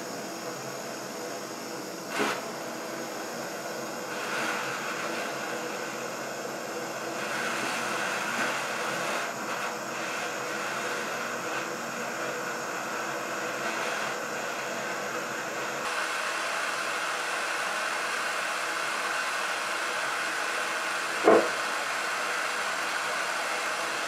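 Handheld gas cartridge torch burning with a steady hiss as its flame heats a small metal part. Two brief, louder sounds break in, one about two seconds in and one near the end.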